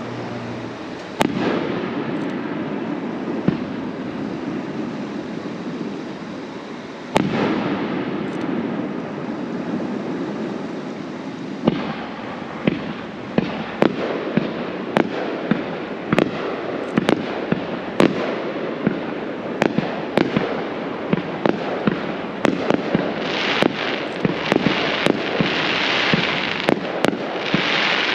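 Aerial fireworks going off: two single bangs about six seconds apart, each trailing into a rumble. About halfway through comes a quick run of bangs, one or two a second, that thickens into a dense spell of noise near the end.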